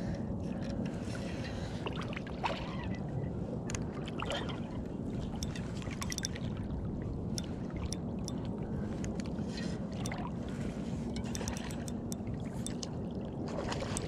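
Shallow river current rushing and gurgling around a wading angler's legs, with scattered small drips and splashes.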